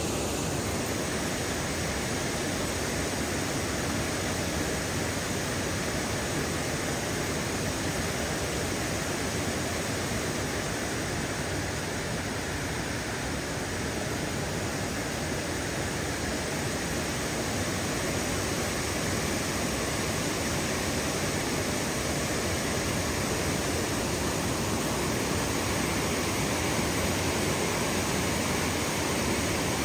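Water rushing steadily from a dam, an even roar with no breaks.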